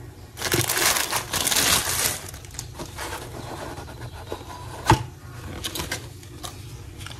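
A gift package of cookies being torn open by hand: a noisy rustling, tearing stretch of about two seconds, then lighter scattered handling sounds and one sharp click about five seconds in.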